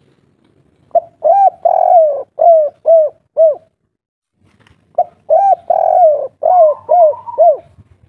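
Spotted dove (tekukur) cooing: two song phrases about four seconds apart, each a run of short arched coos ending in three evenly spaced notes, the 'kuk 3' song type valued by Javanese dove keepers.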